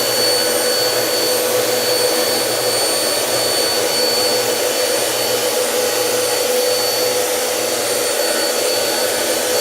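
Bissell CleanView upright vacuum cleaner running steadily on its highest carpet setting while vacuuming carpet, with a constant high whine over the motor and airflow noise.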